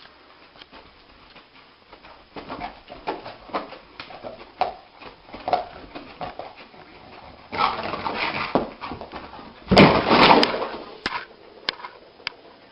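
A dog whimpering and yelping in a run of short calls, with two louder, harsher outbursts near the end.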